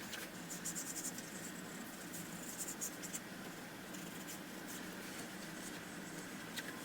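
Faint scratching of a drawing stick on a large sheet of paper as lines are sketched in, in short strokes that are busiest in the first three seconds and then thin out.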